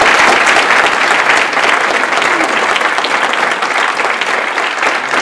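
A large audience applauding, a dense steady clapping that eases slightly toward the end.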